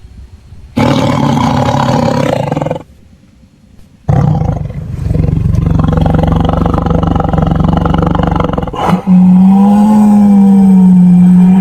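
Loud, low animal calls with short silences between them, the last a long steady call of a few seconds.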